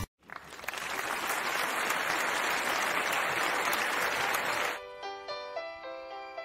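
Applause, many hands clapping for about four and a half seconds, cutting off suddenly. It gives way to quieter melodic music with sustained notes.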